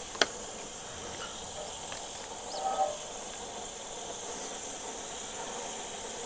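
Steady hiss from a small LPG cylinder-top gas burner under a cooking pot, with one sharp click about a quarter of a second in and a brief faint chirp a little before the 3-second mark.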